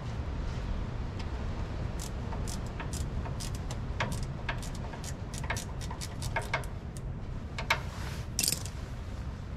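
Irregular light metallic clicks and ticks from hand tools working the bolts of an Oliver 660 tractor's bell housing inspection cover, a few a second, with a couple of sharper clacks near the end, over a steady low rumble.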